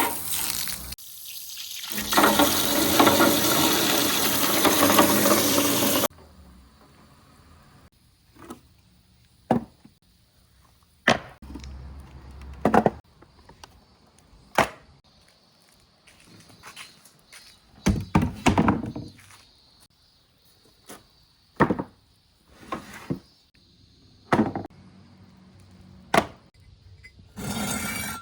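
Glass marbles running through a marble run: a loud, steady rolling rumble for about four seconds, starting about two seconds in, then scattered clicks and clacks as marbles drop, strike and roll along the track.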